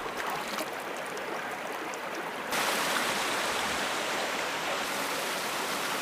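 Rocky mountain stream running over boulders in small cascades, a steady rush of water that becomes louder and brighter about two and a half seconds in.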